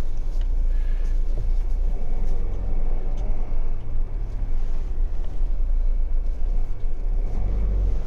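Low, steady rumble of a motorhome's engine and running gear, heard from inside the cab as it moves slowly across a car park, a little louder near the end.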